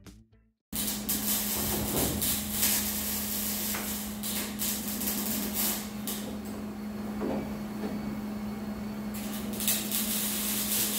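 Jigsaw cutting through the steel roof panel of a 1968 Chevrolet Impala: a steady motor hum under a rough cutting noise, with scattered clicks and knocks. It starts abruptly just under a second in, and the high cutting noise thins for a few seconds past the middle.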